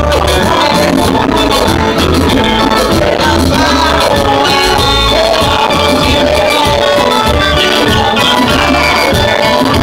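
Loud live band playing upbeat worship music, with singing voices over keyboard, electric guitar and drums and a heavy bass pulse on the beat.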